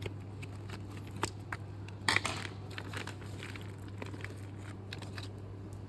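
Scattered light clicks and rustles of a chainsaw chain and its packaging being handled, with a louder cluster about two seconds in, over a steady low electrical hum.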